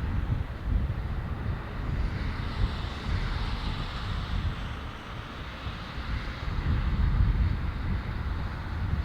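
Jet engine noise from a Boeing 777-200LR: a broad, steady rush that swells about three to four seconds in. Gusty wind rumbles on the microphone throughout.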